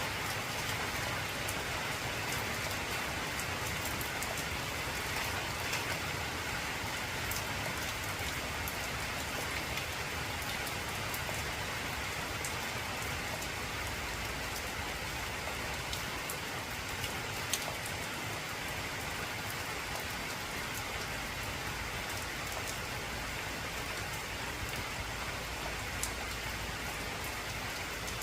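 Heavy rain falling on an old corrugated tin roof: a steady hiss with scattered sharp ticks of individual drops hitting the metal.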